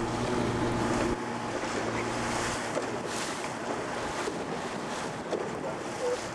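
Wind buffeting the microphone over choppy water slapping around a small inflatable motorboat, with the steady hum of the boat's engine, loudest in the first second.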